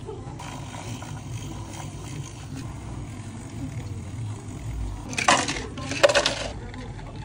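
Ice cubes tipped from one plastic cup into another, clattering in two short bursts about five and six seconds in, over a low steady background hum.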